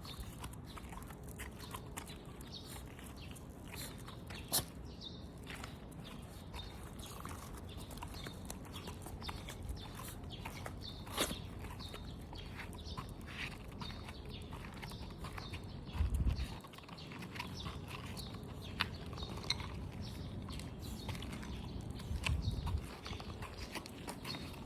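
Shih Tzu puppy sneezing several times, each sneeze a short sharp burst. There are a couple of brief low bumps, one about two-thirds of the way in and one near the end.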